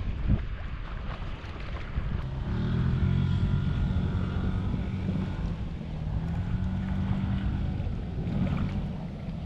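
River motor ship A.S. Popov sounding its horn: one long, steady, low blast of about five seconds, starting a couple of seconds in, over wind buffeting the microphone and water noise.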